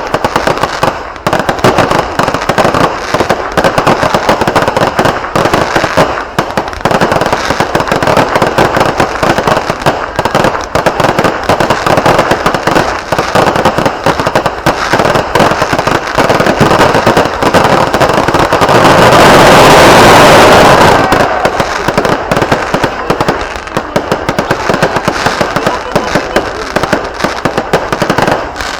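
Fireworks going off in a dense, rapid, continuous barrage of crackling bangs. About two-thirds of the way through, the bangs merge into a louder unbroken burst lasting about two seconds.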